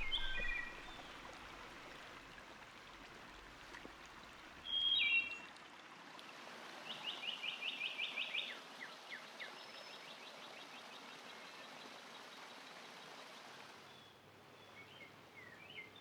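Spring woodland songbirds singing: a few short chirped phrases, then a fast trill of about seven quick repeated notes a second lasting nearly two seconds and trailing off into slower notes. A steady hiss lies underneath.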